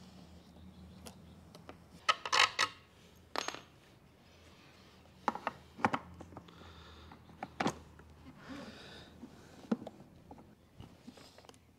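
Small metal screws and a metal light bracket clinking and knocking while a halogen work light is fitted to a small inverter generator: a scatter of sharp metallic clicks, the loudest a short rattle about two seconds in.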